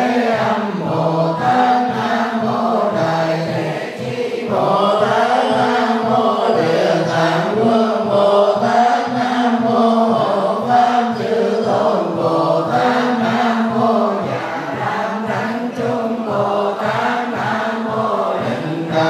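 Buddhist monks chanting sutras together in sustained, slowly moving tones, amplified through microphones, over a steady beat.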